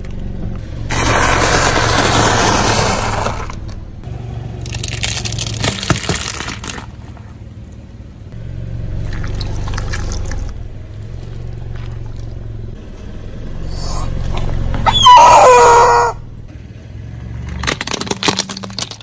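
A car tyre rolling slowly over objects and crushing them, over a low steady hum. There are several stretches of crunching and crackling, a loud short squeal that slides in pitch a little before the end, and a quick run of sharp plastic cracks as a row of toy sunglasses is run over near the end.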